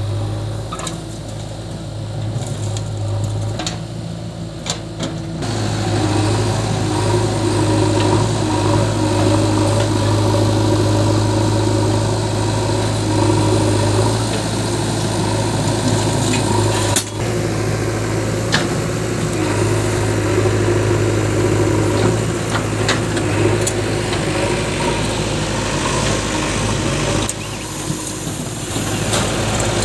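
Diesel engines of a JCB 3DX backhoe loader and a farm tractor running steadily in a loud, even drone, with a few sharp knocks.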